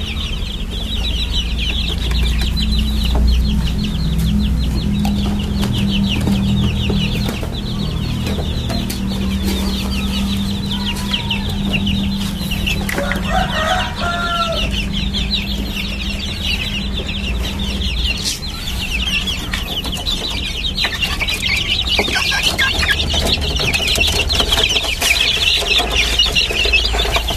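A brood of young Bangkok game-fowl chicks peeping continuously, many high calls overlapping. A lower chicken call comes once about halfway through, and a steady low hum runs under the first half.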